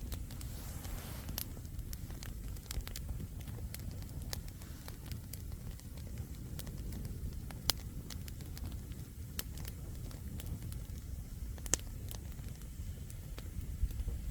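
Wood campfire burning: a steady low rush of flames with frequent small crackles and a few sharp pops, the loudest about eight and twelve seconds in.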